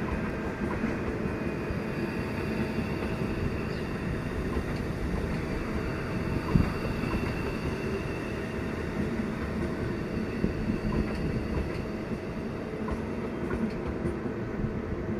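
CR400AF high-speed electric trainset rolling past on the depot track: a steady rumble of wheels on rail, with one short knock about six and a half seconds in.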